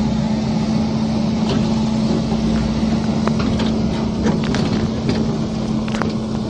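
A heavy machine's engine running steadily with a low hum, with a few scattered clicks and knocks over it.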